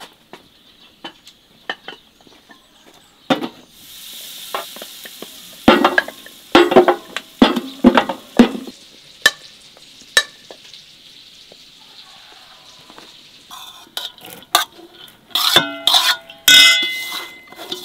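Food sizzling in a hot pan while a metal utensil stirs it, scraping and knocking against the pan. Near the end, metal utensils clink against cookware several times with a short ringing tone.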